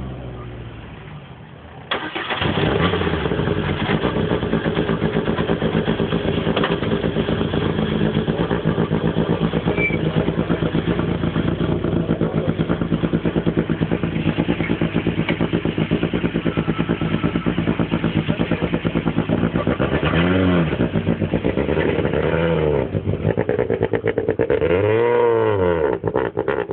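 Peugeot 207 Super 2000 rally car's naturally aspirated 2.0-litre four-cylinder engine starting up about two seconds in, then idling with a steady pulsing beat. Near the end it is revved in three short blips, the last as the car drives off.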